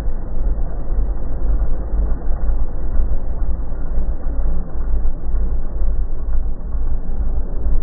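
Slowed-down road-vehicle noise from a car and motorcycle: a deep, even rumble with no clear engine note and no sudden impacts.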